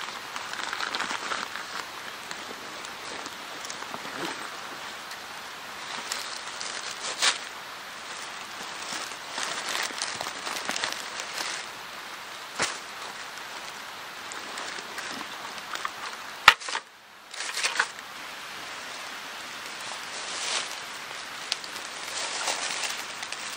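Rustling and handling of a backpack, clothing and dry grass, with scattered sharp clicks and knocks; one loud click about two-thirds through, followed by a brief drop in sound.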